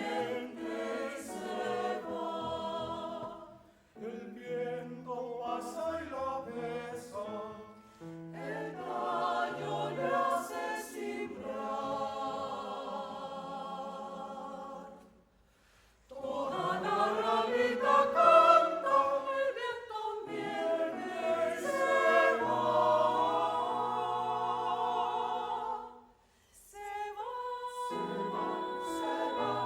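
Choir singing a piece in phrases, breaking off briefly about four, fifteen and twenty-six seconds in and at its loudest around eighteen seconds in.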